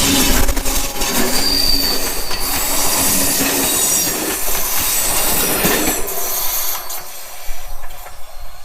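Train rolling past close by, its wheels squealing with a clatter of clicks over the rail joints; the sound thins out about six seconds in as it moves away.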